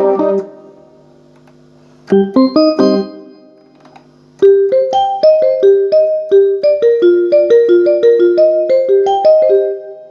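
Keyboard notes played through an S-Engine sound module: a short chord, another after a pause, then from about four and a half seconds a steady run of single held notes, each sounding until the next.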